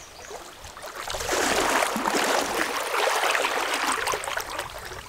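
Water splashing and sloshing in a shallow river for about three seconds, starting about a second in.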